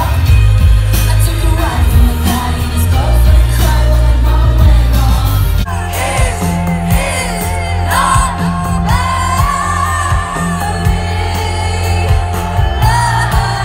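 A live rock band playing loud through a festival PA, with singing, recorded by a phone from within the crowd. About six seconds in it cuts abruptly to a different song.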